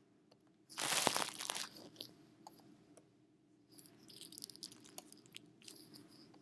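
Close crunching and crackling noises: a loud burst about a second in, then a run of smaller crackles from about four seconds in.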